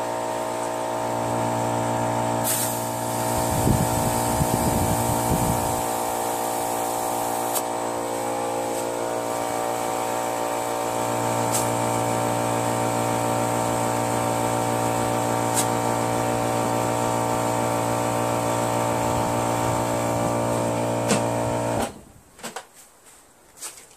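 Electric air compressor running steadily as it pumps up its tank, then shutting off suddenly near the end as the tank fills. A few light clicks and knocks sound over it.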